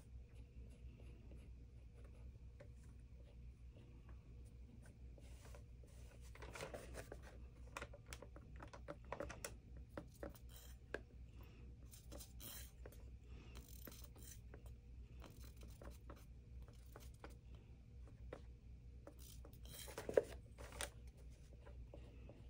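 Faint scratching, tapping and clicking of small craft tools being handled on a work table, over a low steady hum. The sounds cluster in the middle stretch, and one sharp click about twenty seconds in is the loudest.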